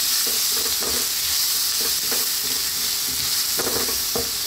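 Chopped ginger and garlic sizzling in hot oil in a pan while a wooden spatula stirs them, with irregular scraping strokes against the pan over a steady sizzle.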